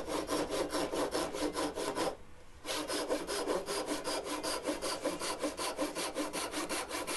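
Handsaw cutting through a pine block: quick, regular strokes, about four a second, with a brief pause about two seconds in.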